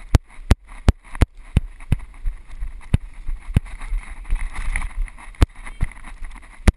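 Wind rumbling on the microphone, with a run of sharp clicks: about three a second at first, then more widely spaced.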